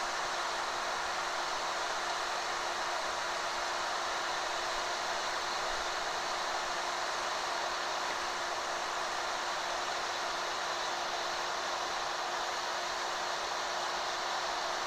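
Electric heat gun with a plastic-welding tip blowing steadily: an even hiss of hot air over a constant motor hum, as it melts HDPE welding rod into the seam.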